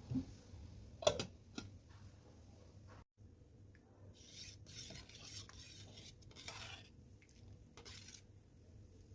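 Kitchenware sounds while cooking rasam: a sharp knock of a utensil about a second in, then several seconds of rough scraping and stirring noise in short stretches.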